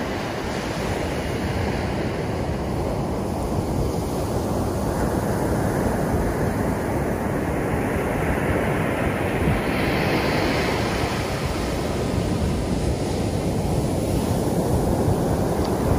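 Ocean surf breaking and washing up a sandy beach, with wind buffeting the microphone. A wave's wash swells up loudest a little past halfway through.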